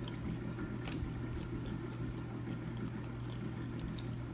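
Steady low hum in the room, with a few faint, scattered clicks from chewing crunchy fried shrimp.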